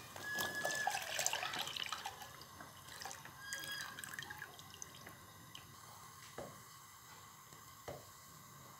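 Milk poured into a pan of boiling tea, splashing and bubbling, dying down after about four seconds. Two short knocks follow near the end.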